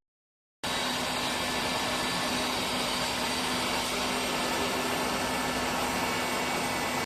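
A running electric blower motor: a steady rushing air noise with a faint low hum. It starts abruptly about half a second in and cuts off just before the end.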